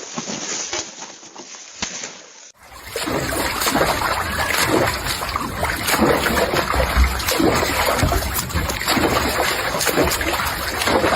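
Water splashing and sloshing, with many small sharp splashes. About two and a half seconds in it cuts to a louder, denser stretch with a low rumble underneath.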